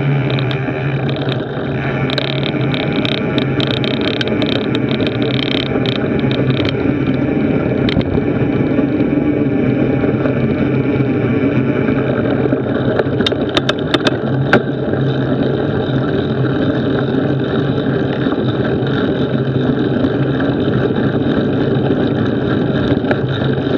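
Knobby-tyred mountain bike rolling along a dirt and gravel trail: steady rolling and wind noise with a low hum, quick clicking and rattling through the first several seconds, and a few sharp knocks about halfway through.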